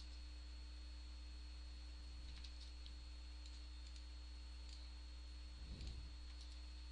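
Faint computer mouse button clicks, a few scattered single and double clicks, over a steady low electrical hum. A brief soft noise comes near the end.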